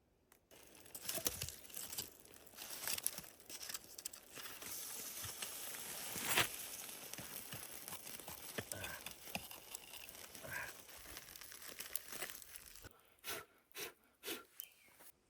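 Rustling, crinkling and crunching noises with scattered sharp cracks, then a few separate short rustles near the end.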